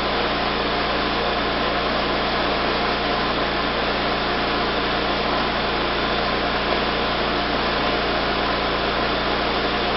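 Steady, even hiss with a low hum underneath.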